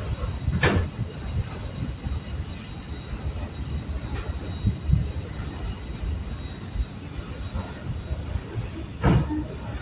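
A long train rolling past a railroad crossing: a steady low rumble of wheels on the rails, with a sharp clack about a second in and another near the end.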